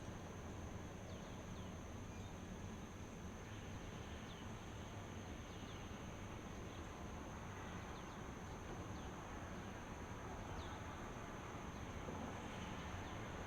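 Steady outdoor dawn ambience: a continuous high insect drone over an even hiss, with a few faint, short bird chirps scattered through it.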